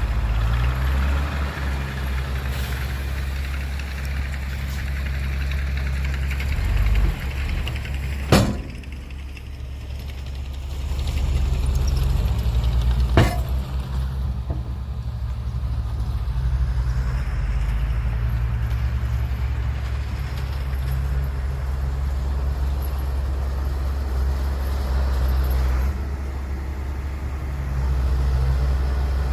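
Heavy diesel engine of a dump truck or earthmover running with a steady low rumble, with two sharp knocks, about five seconds apart, near the middle.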